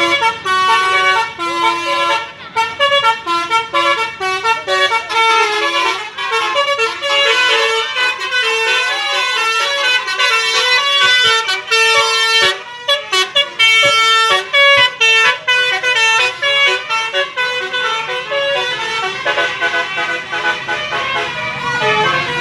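Basuri musical multi-tone vehicle horns playing fast stepped melodies. Two horns trade tunes and overlap in a horn battle, with no pause.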